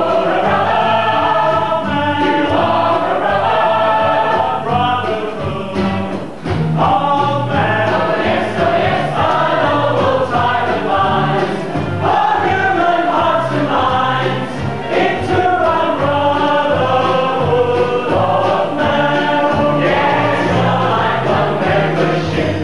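Full cast of a stage musical singing a chorus number together over instrumental accompaniment.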